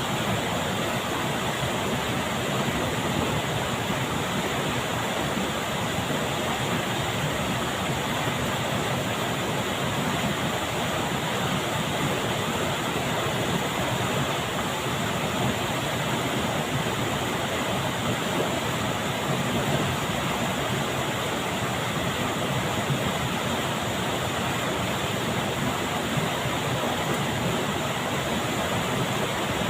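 Steady rushing of flowing water, an even noise that holds unchanged throughout.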